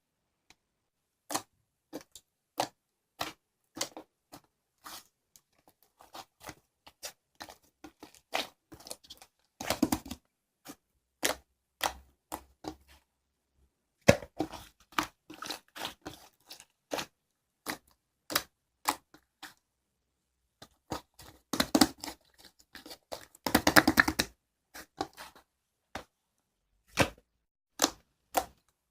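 Slime being squished and poked by hand, giving a string of sharp pops and clicks from trapped air, with denser crackling flurries about a third of the way in and twice more past the middle.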